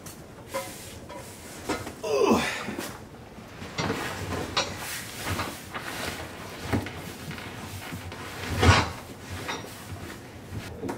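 A heavy cardboard box being pushed and slid into the rear cargo area of a C6 Corvette Z06: cardboard scraping and rubbing with irregular bumps and knocks, the loudest thump near the end.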